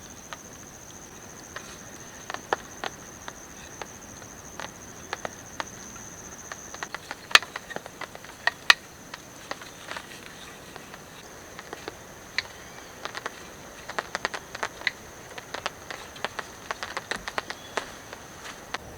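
An insect, likely a cricket, keeps up a steady high-pitched drone. Over it come scattered irregular taps and clicks, busiest in the second half.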